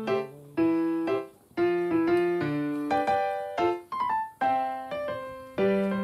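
Background music: a piano-like keyboard melody of single struck notes, each fading before the next.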